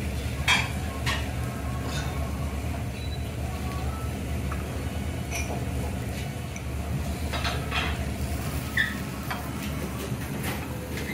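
Metal teppanyaki utensils clinking and tapping now and then over a steady low rumble, about eight sharp clinks spread over the stretch, two of them close together near the middle.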